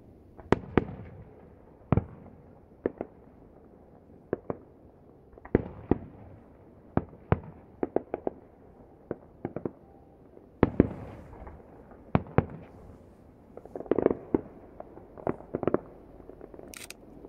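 Aerial firework shells bursting, heard from about a kilometre away: about two dozen sharp bangs at irregular intervals, some singly and some in quick clusters.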